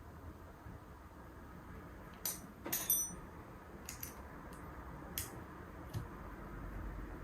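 Faint, scattered clicks and taps of small spinning-reel parts being handled and fitted by hand, with a quick cluster of clicks about three seconds in.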